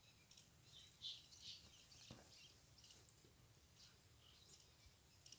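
Near silence: a quiet open-air background with faint, scattered bird chirps.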